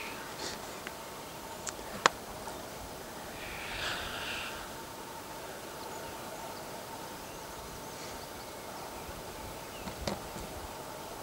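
Distant black grouse lekking: a steady bubbling rookoo hums in the background, with a short hissing call about four seconds in. A sharp click sounds about two seconds in.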